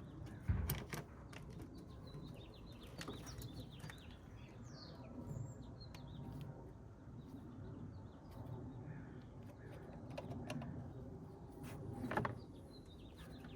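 Small birds chirping in the background, with scattered clicks and knocks from hands working on the truck. A louder thump comes about half a second in and another near the end.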